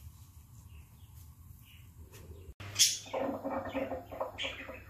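Domestic cat's pitched, warbling call lasting nearly two seconds, preceded by a sharp click about half a second earlier.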